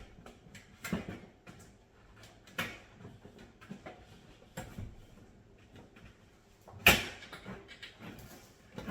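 Scattered knocks, clicks and rustles from handling the panels and parts of a metal raised garden bed during assembly, with one sharper knock about seven seconds in.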